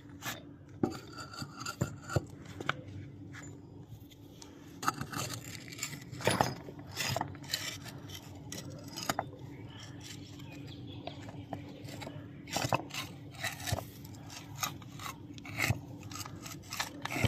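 Irregular knocks, clinks and scraping of metal tools and car parts being handled and worked, over a faint steady hum.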